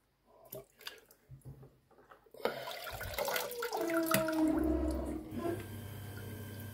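Water splashing and sloshing in a plastic bucket as a hand rummages through it to scoop out leeches. Faint drips and small splashes at first, then louder, continuous swishing from about two and a half seconds in.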